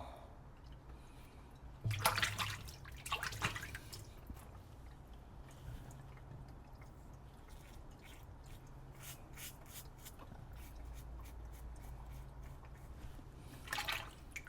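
Water splashing and dripping during a wet shave, in two short bursts about two and three and a half seconds in and again near the end, with a string of faint, fine ticks in between.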